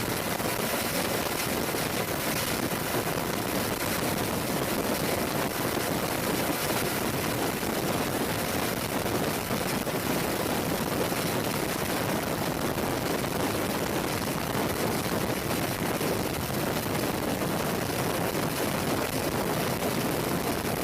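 Military helicopters running steadily, their engines and rotors heard as a dense, even noise with no distinct beat or change.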